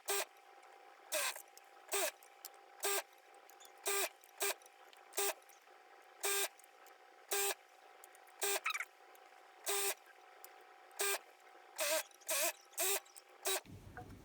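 A 4-thread overlock sewing machine run in about sixteen short bursts, roughly one a second, as the braid is fed through a little at a time.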